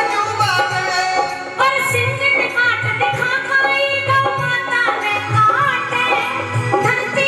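A woman singing a Rajasthani folk devotional song into an amplified microphone, accompanied by keyboard and a dholak that beats a steady rhythm.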